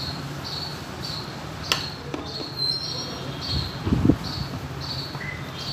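Screwdriver working the bolts of a Honda Activa's plastic air filter box cover: a sharp click a little under two seconds in, then a cluster of low knocks about four seconds in. Behind it, a high insect-like chirp repeats steadily, about three times every two seconds.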